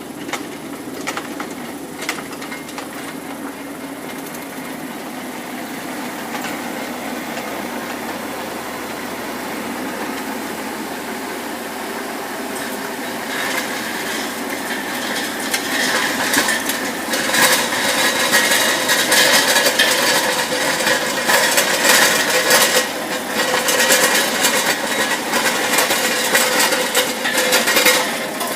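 Kubota mini excavator running and working, with a steady whine and repeated metal clanks and knocks that grow louder from about halfway through.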